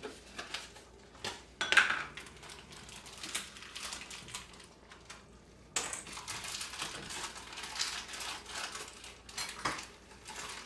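Wooden spoon stirring stew in a stainless steel pan: scattered knocks and scrapes against the pan, the loudest knock about two seconds in, turning into steadier scraping from about six seconds in.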